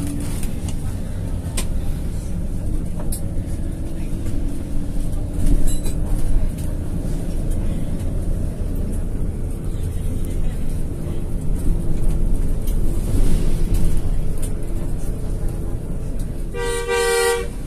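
Diesel engine and road noise of a coach heard from inside the cabin as it drives along, a steady low rumble. Near the end a horn sounds once, briefly, for under a second.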